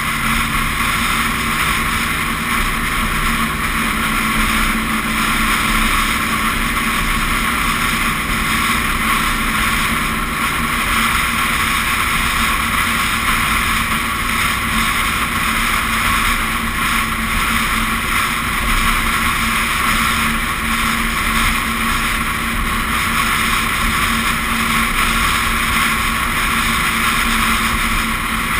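Steady rush of wind and road noise from a vehicle driving at highway speed, heard from a camera mounted on its hood, with a steady low hum underneath.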